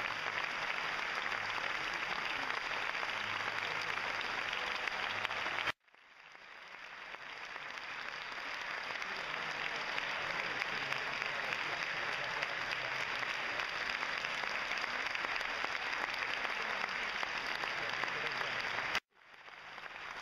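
Large audience applauding steadily. The applause cuts off abruptly about six seconds in and fades back up over a couple of seconds, then cuts off again near the end.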